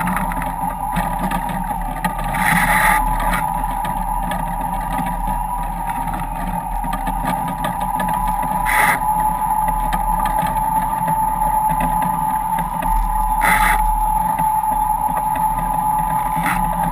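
Foiling sailboat at speed: rushing water and wind noise with a steady high-pitched hum from the foils, and three short louder rushes of spray.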